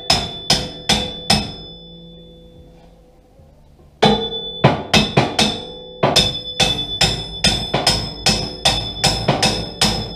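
A hammer strikes a length of square steel tube, pounding it into place inside a steel tractor bucket. Each blow rings with a clear metallic tone. Four quick blows, a pause of about two and a half seconds, then a steady run of blows, two to three a second.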